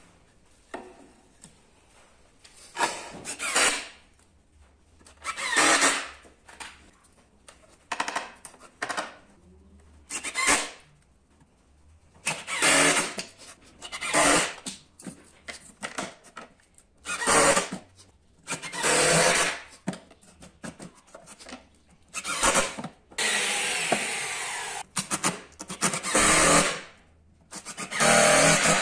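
Wood being cut with a tool, heard as a series of separate noisy bursts, most about a second long, with one longer stretch of about three seconds near the end.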